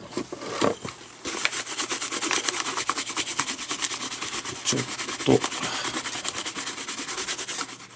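A hand rubbing fast back and forth over the leather of a newly relaced Rawlings Pro Preferred baseball glove. It makes rapid, even scratchy strokes, about nine a second, that start about a second in and stop just before the end.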